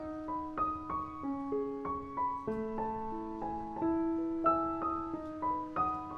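Background piano music: a slow melody of single struck notes over longer held low notes.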